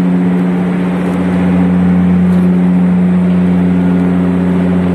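Steady, loud drone of a large ship's machinery heard inside the cargo hold: one deep, unchanging tone with overtones.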